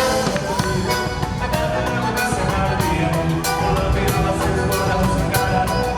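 Forró music playing at a steady level, with pitched instruments over a regular beat.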